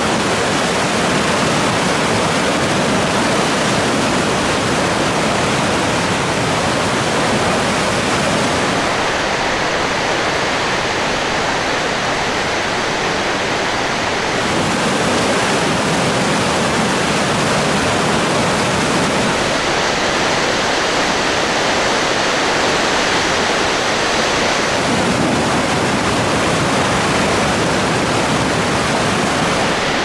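Rapids and falls of the Chicoutimi River running high in flood: a loud, steady rush of whitewater, its tone shifting slightly every five seconds or so.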